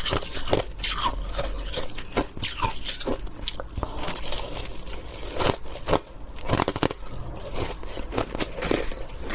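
Close-miked crunching and biting of shaved ice, a rapid irregular run of sharp crunches. Near the end a metal spoon scrapes through the ice in the bowl.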